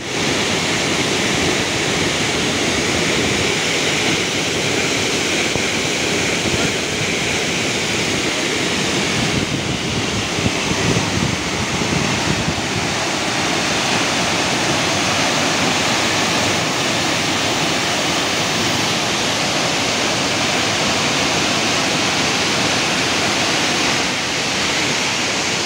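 Large waterfall: a loud, steady rush of falling water pouring into a churning river pool.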